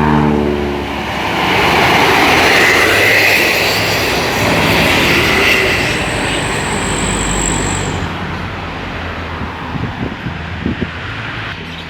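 A bus passing close by at speed, its engine and tyre noise swelling and then fading, after a horn chord cuts off about a second in. A thin high whine sounds for about two seconds in the middle of the pass.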